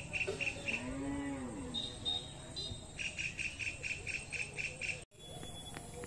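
Insects chirping in a fast, even pulse, about seven pulses a second, which pauses and then returns. About a second in comes one short animal call that rises and falls in pitch, followed by a few high bird chirps. Near the end the sound drops out for an instant.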